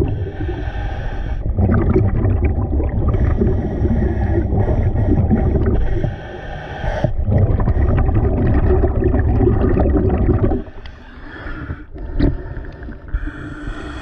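Scuba regulator breathing heard underwater through a camera housing: repeated hissing breaths and a heavy rumble of exhaled bubbles as the diver ascends. About ten and a half seconds in the rumble stops as the diver surfaces, leaving lighter water sounds.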